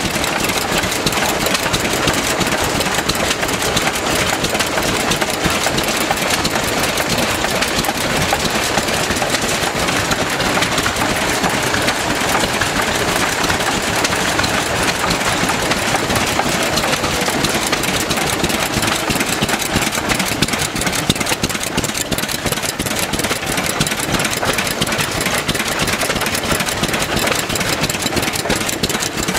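Several vintage hopper-cooled stationary engines running together, their firing beats overlapping into a steady, dense rhythm.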